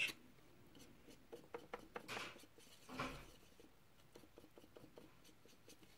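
Faint handling noises on a tabletop: a few light ticks and rustles as a hand moves small objects such as a paintbrush, with a slightly louder rustle about three seconds in.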